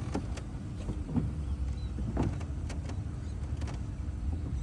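Steady low hum of a small electric motor, with a few light clicks and knocks scattered through it.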